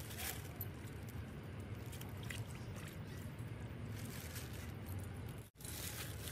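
Faint sloshing and pouring of curry gravy as a steel ladle scoops from a big pot into a plastic bag, with the bag crinkling.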